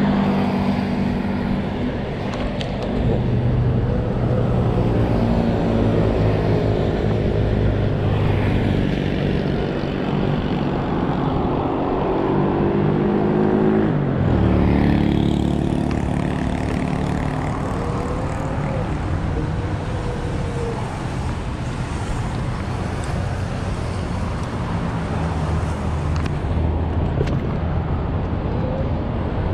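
Road traffic: car and truck engines running and passing on a multi-lane road, heard from a moving electric scooter. A steady noise throughout, with a drone that falls in pitch about halfway through.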